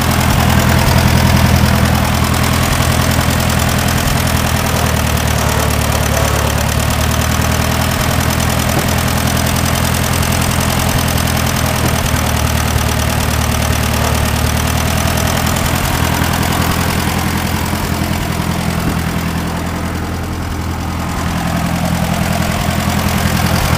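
International Harvester 350 Utility tractor engine idling steadily, dipping slightly in level for a couple of seconds near the end.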